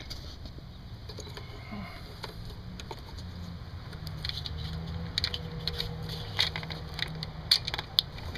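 Scattered light metallic clicks and taps of a socket wrench and extension being fitted onto a spark plug, coming more often in the second half, over a low steady hum.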